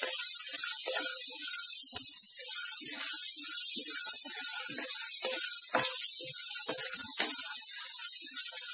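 Sprouted chickpeas and onions sizzling in hot oil in a steel kadai while being stirred, with a steady hiss and occasional scrapes and knocks of a wooden spatula against the pan.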